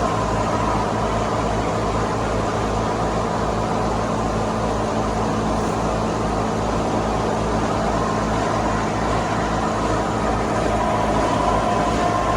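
Massey Ferguson 385 tractor's diesel engine running steadily under load, driving a mustard thresher through its belt. The engine's even low beat sits under a steady hum from the threshing machinery.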